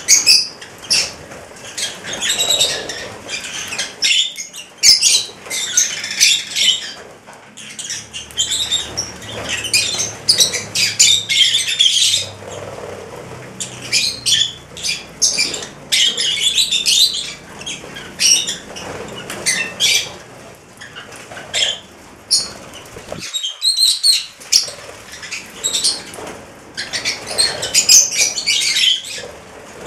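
A flock of rosy-faced lovebirds chattering, many shrill chirps and squawks overlapping in irregular bursts, with brief lulls.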